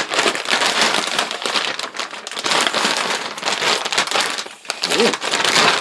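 Clear plastic bag crinkling and rustling loudly as a tripod is worked out of it.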